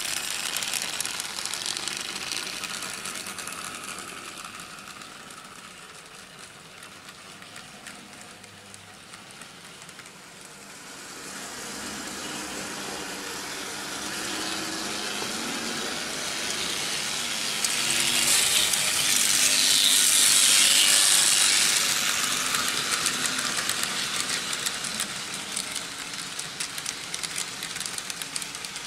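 Vintage Märklin H0 model trains running on metal M track: motors whirring and wheels rattling over the rails. Loud at first as a locomotive passes close, it drops away, then builds to its loudest about two-thirds through as a train comes by again, and eases off near the end.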